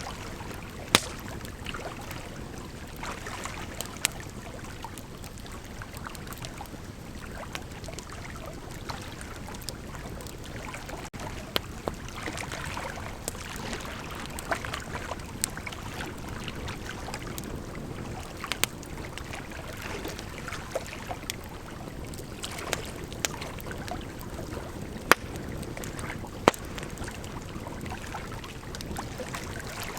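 Bonfire burning with a steady rushing hiss and constant small crackles, with sharp pops scattered through it. The loudest pops come about a second in and twice close together near the end.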